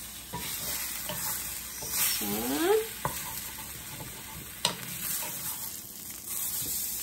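Steak sizzling on high heat in a cast-iron pan, with a wooden spatula scraping under it as it is lifted and turned. There is one sharp tap against the pan a little past two-thirds of the way through.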